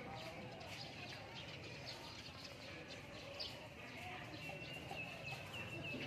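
Sparrows chirping: many short, scattered chirps, then a quick run of evenly pitched chirps from about two-thirds of the way in. A low steady hum lies underneath.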